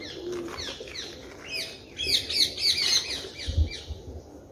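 Small birds chirping: many short, quick chirps that drop in pitch, busiest about two to three seconds in.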